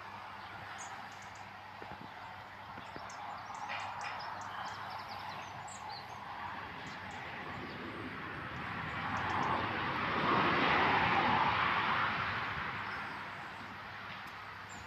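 Outdoor roadside ambience: a vehicle passes, its noise swelling and fading about nine to thirteen seconds in, with faint bird chirps in the first half.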